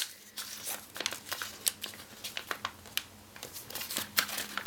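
Sheet of origami paper being handled and folded, with scattered small crinkles and crackles as the folds are pressed in.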